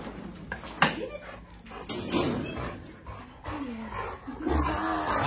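A dog making odd vocal noises: a few sharp clicks or knocks in the first half, then low grumbling, moaning sounds that slide up and down in pitch in the second half.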